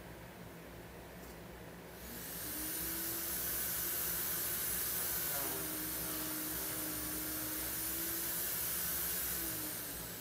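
An electric motor starts up about two seconds in, rising quickly in pitch, runs steadily with a high hiss for about eight seconds, then winds down with a falling pitch near the end.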